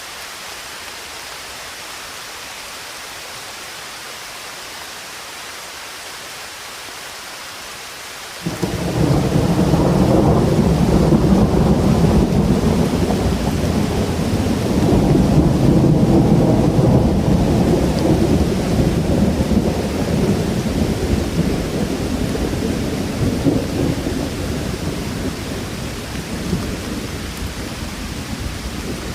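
Steady rain hiss. About eight seconds in, a loud low rumble of thunder breaks in suddenly, rolls on for many seconds and slowly fades.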